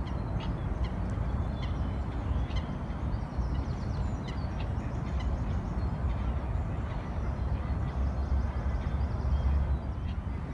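Outdoor ambience: a steady low rumble with short bird calls scattered over it.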